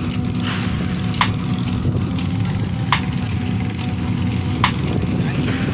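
Steady low drone of trailer-mounted diesel air compressors running, with a sharp knock three times, about every second and a half.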